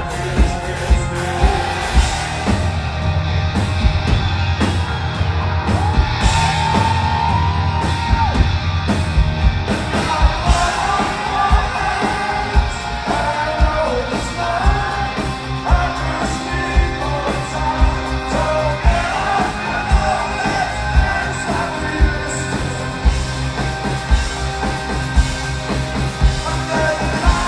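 A live rock band plays with sung vocals over drums, bass guitar, electric guitar and keyboards, heard from among the audience, with a steady kick-drum beat about twice a second.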